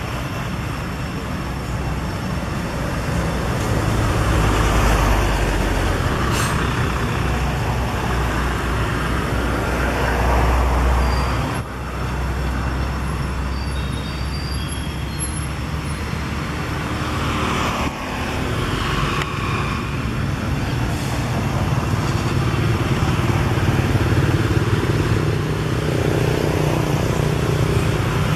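Road traffic: a steady rumble of engines and tyres, with several vehicles swelling up and fading away as they pass, the sound breaking off abruptly twice.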